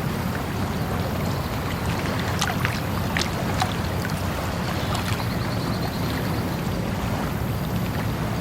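Flowing water of a river or stream, a steady rushing with a deep rumble, with a few brighter splashes and drips between about two and four seconds in.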